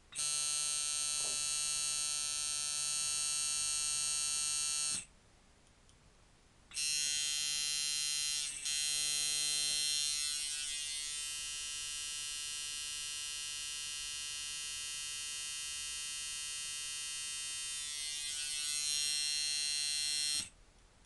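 Mickey Sharpz Hybrid frame coil tattoo machine, set up as a long-throw liner with 8-layer coils, buzzing steadily at 4 volts. It is switched off about five seconds in, restarts nearly two seconds later and runs until just before the end.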